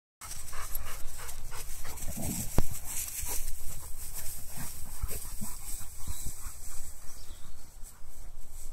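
Old English Sheepdogs panting and scuffling through long grass as they play, with a few sharp thumps, over steady wind noise on the microphone.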